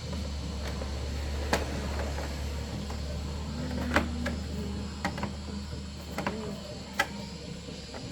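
A steady low hum with a few scattered sharp clicks and knocks.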